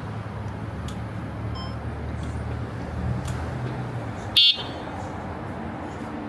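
A short, loud, high-pitched electronic beep about four and a half seconds in, over a steady low rumble of outdoor vehicle noise.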